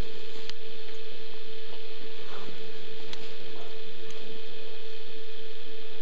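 A steady electrical hum on one pitch over an even hiss, with three faint clicks.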